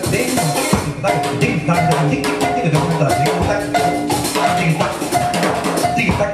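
Live improvised band music: drum kit and congas playing a busy, dense rhythm under a guitar picking repeated notes.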